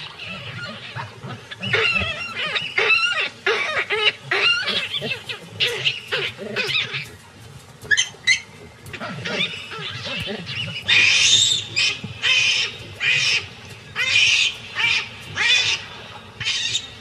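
Baboons calling and screaming, many overlapping high, wavering calls. From about eleven seconds in they give way to a run of louder, harsher screams.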